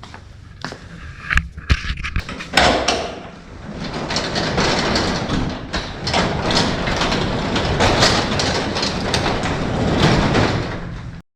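A few clicks and knocks, then a large door sliding open with a steady rattling, scraping noise for several seconds, cut off abruptly near the end.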